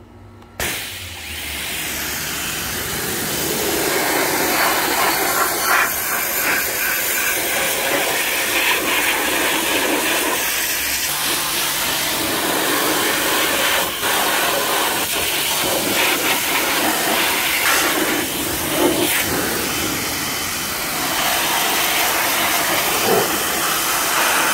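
Pressure washer jet spraying a steady hiss of water onto a car's engine bay and frame, rinsing off foaming engine degreaser. The spray starts about half a second in.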